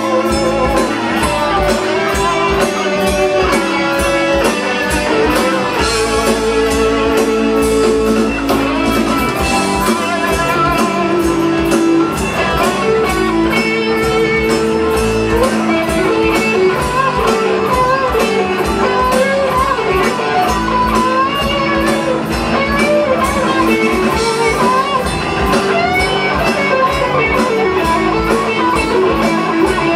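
Live rock band playing with an electric guitar taking the lead. Sustained, bending guitar lines ride over bass and a steady drum beat.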